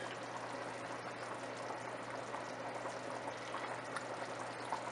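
Goat-meat stock (yakhni) boiling steadily in a wide pan, a continuous bubbling hiss, with a few faint ticks near the end.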